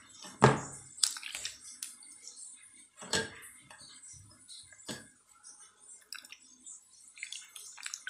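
Liquid sloshing and dripping in a steel bowl, with a few sharp knocks and clinks of steel kitchenware, the loudest about half a second in and others near one, three and five seconds.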